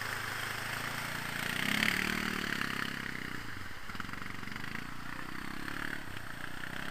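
Kymco quad's engine running, revving up and easing back off twice under a little throttle.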